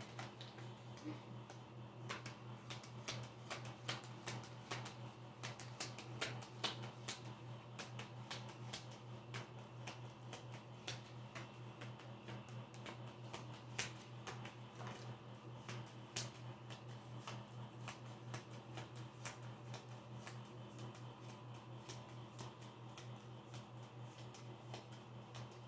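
Tarot cards being shuffled by hand: a quiet, irregular stream of soft card clicks and snaps, over a steady low hum.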